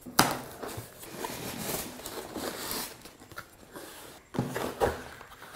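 A cardboard box being opened by hand and a cardboard accessory tray lifted out of it: a sharp snap of the flap near the start, then cardboard rustling and scraping, with a couple of knocks near the end as the tray is handled.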